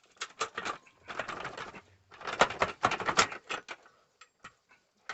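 Motorcycle exhaust pipe being worked loose and pulled off the engine: irregular bursts of metal scraping and clanking, loudest a little past the middle, then a few scattered clicks.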